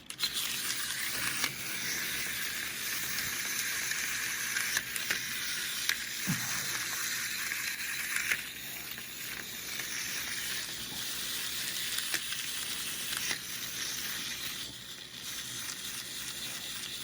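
Two wind-up seal toys' spring-driven clockwork motors whirring steadily as they unwind, with light clicks. The whirring drops noticeably about eight seconds in, then carries on more faintly.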